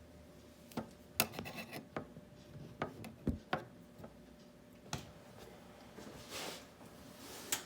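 Quiet handling noise: a dozen or so scattered clicks and knocks with some rubbing, as things are moved about by hand.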